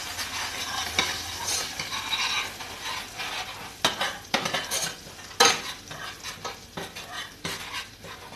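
Chopped onion frying in oil with ground spices, sizzling steadily in a small stainless steel saucepan, while a metal spoon stirs it and clicks sharply against the pan several times.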